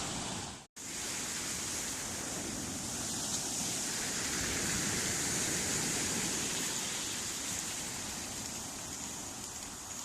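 Black Sea waves washing on the shore, a steady rushing noise, cut off completely for a moment under a second in.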